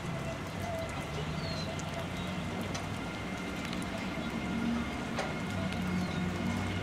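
Steady rain with scattered sharp drips close by, over a faint low hum.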